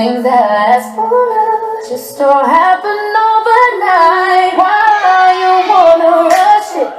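Music from a sound system: a woman singing long, held and gliding notes over sparse backing, with little beat underneath.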